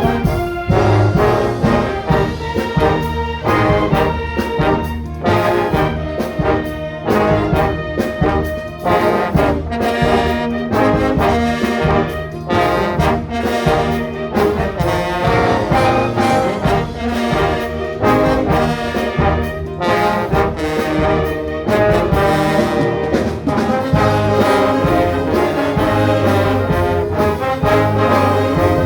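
Orchestra playing a Christian instrumental piece, with the brass section leading in sustained, full chords.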